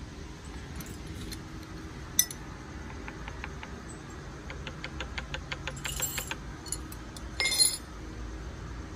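Metal-on-metal work sounds: a sharp click, then a run of quick even ticks, then a loud ringing clink near the end, as hand tools work on metal engine parts.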